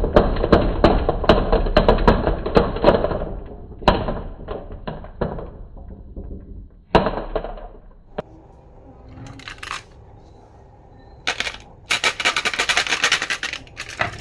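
Marbles rolling and clattering along a marble run. A dense run of rolling and clicking comes first, then scattered clicks and a sharp knock about halfway, a quieter stretch, and bright rattling near the end.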